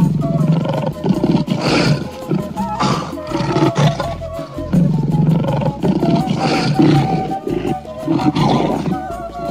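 Lion roars in three long bouts over carnavalito music with a wavering melody line.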